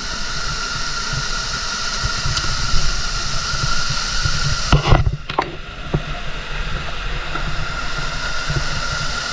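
Steady rush of flowing water, with a single sharp knock about five seconds in.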